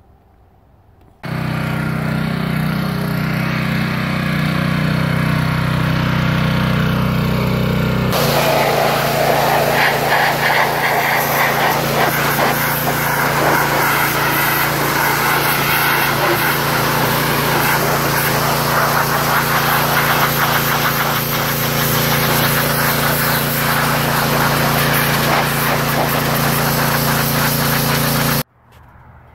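Gas pressure washer running steadily, its small engine's drone starting suddenly about a second in. From about eight seconds in the jet is spraying, adding a loud hiss of high-pressure water blasting a stripped metal frame. It all cuts off suddenly near the end.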